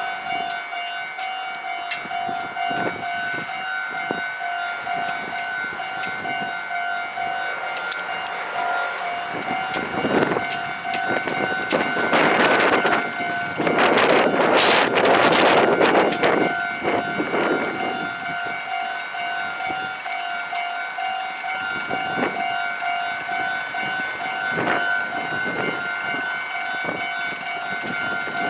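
Japanese railway level-crossing alarm ringing its steady, repeating electronic ding while a Meitetsu 1800 series electric train passes. The train's rumble and wheel clicks build about ten seconds in, are loudest around fifteen seconds in, then fade.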